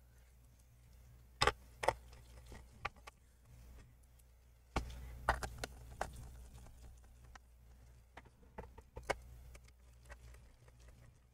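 Small screwdriver driving the screws back into a laptop's bottom cover: scattered light clicks and taps of the bit and screws against the case, with a few sharper clicks in between, over a faint low hum.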